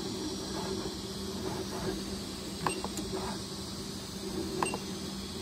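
Creality Ender 3 V3 SE 3D printer running mid-print with a steady hum from its motors and fans. Two short, sharp clicks come from its control knob being pressed, one about two and a half seconds in and one about four and a half seconds in.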